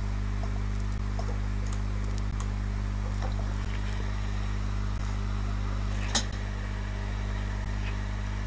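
Steady low hum with no speech, and one short faint click about six seconds in.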